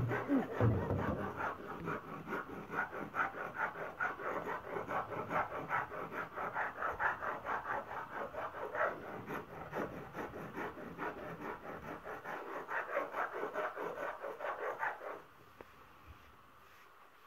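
Hand stone rubbed back and forth over a flat grinding stone, grinding millet into flour: a fast, even rhythm of gritty scraping strokes that stops about fifteen seconds in. A few low thuds come at the very start.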